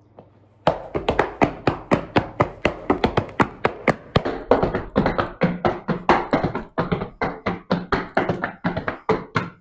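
Heavy boots stamping and tapping a rapid, even folk-dance rhythm on a hard floor, about five strikes a second. The stamping starts about a second in and runs on until just before the end.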